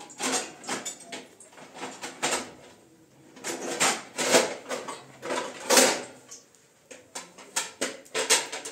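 Dishes and metal pans clattering as they are handled in a wire dish rack: a string of irregular knocks and clinks, the loudest about four and six seconds in.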